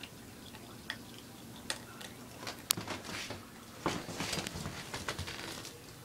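Several ferrets eating dry cat food from a bowl: scattered sharp crunches and clicks of kibble being chewed and knocked about in the bowl, busiest around four seconds in.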